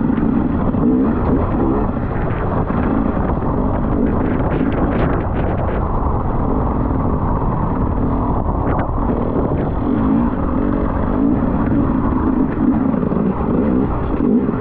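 Enduro motorcycle engine running under way, its pitch rising and falling as the throttle is worked, with scattered short clicks over it.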